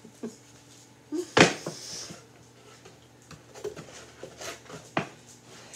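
A cardboard board book being handled: a loud slap about a second and a half in, then lighter taps and rustles, and a sharp knock near the end as the book is stood up on a wooden tray.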